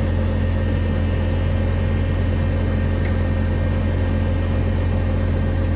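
Steady low mechanical hum of a running motor, unchanging throughout.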